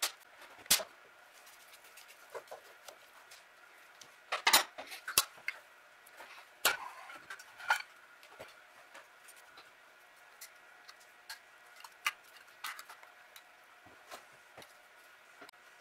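Scattered metal clinks, taps and knocks as a Rochester Model B carburetor is taken apart: its air horn is lifted off the body and it, tools and small parts are set down on the workbench. A cluster of louder knocks comes about four to five seconds in, and another pair a little after six seconds.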